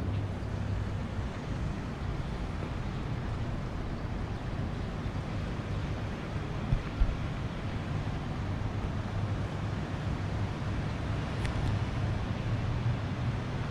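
Steady urban background rumble with a low hum, like distant city traffic, and some wind on the microphone. A couple of soft thumps come about seven seconds in.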